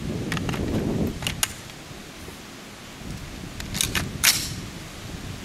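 Sharp metallic clicks and clacks of a Rock River Arms LAR-47 rifle being handled and loaded with an AK-pattern magazine, a few light clicks early on and a louder cluster of clacks as the magazine is rocked into the magwell, the loudest about four seconds in.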